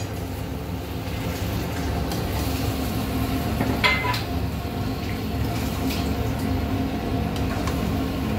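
Metal spatula stirring marinated mutton pieces in a wok, with a sharp clink of the spatula against the pan about four seconds in and a few lighter taps, over a steady low hum.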